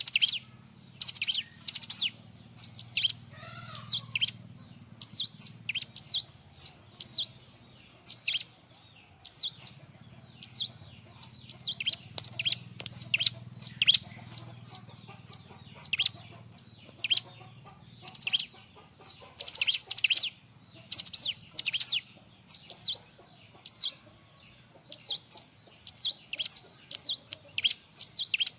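Bar-winged prinia (ciblek) calling busily: a rapid string of short, sharp, high chipping notes, often in quick groups of two to four, with brief pauses between groups.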